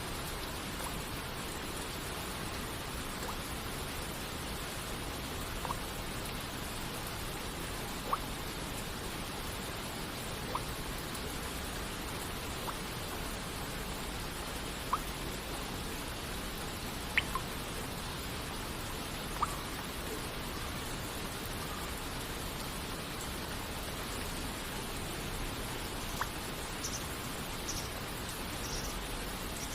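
Steady hiss of rain and falling water, with single water droplets plinking every two to three seconds.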